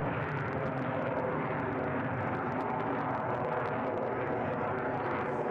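Jet aircraft engine noise, a steady even rush that holds at one level.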